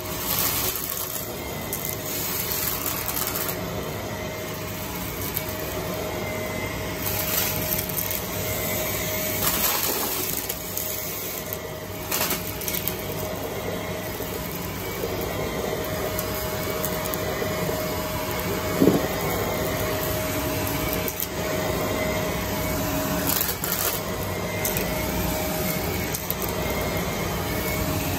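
Vacuum cleaner motor running steadily while it sucks up a thick mix of debris, with scattered crackles and clacks as pieces rattle up through it and one sharp clack about two-thirds of the way through.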